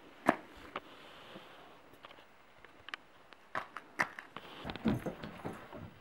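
Scattered sharp knocks and clicks, one loud one just after the start, then a run of duller thumps in the last second and a half.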